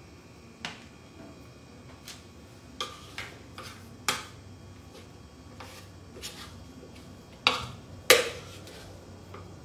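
A metal spoon clinking and scraping against a mixing bowl while scooping out scone dough: a scattered run of sharp clinks, the loudest two close together near the end.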